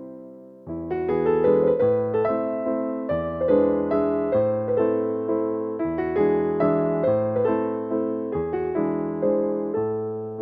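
Background piano music: a gentle melody of struck notes over chords, each note fading after it is played.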